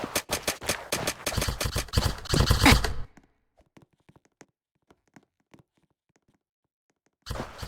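Airsoft guns firing rapid, irregular bursts of shots for about three seconds. The sound then drops to near silence with a few faint clicks, and loud firing starts again near the end.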